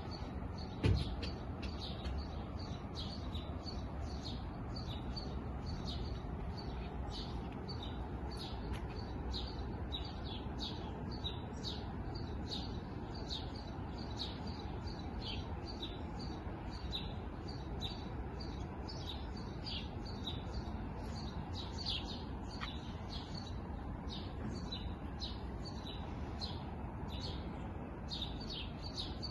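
A flock of small birds chirping continuously, many short quick chirps overlapping, over a steady low background hum. A single thump about a second in.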